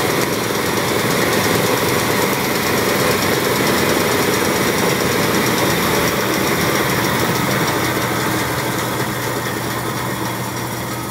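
DoAll 1612-0 vertical bandsaw running empty in its high-speed range: a steady mechanical whir of its three-phase motor, drive and blade that grows gradually quieter over the last few seconds.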